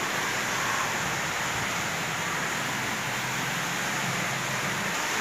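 A steady, even hiss with a faint low hum beneath it.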